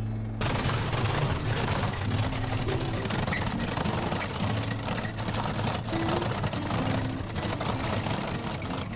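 Open-sided safari truck driving along a gravel road: engine running with steady wind and road noise, coming in abruptly just after the start.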